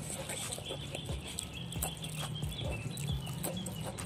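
Soft clicks and crackles from a green petai pod being split open by hand and from chewing, with faint bird chirping in the background.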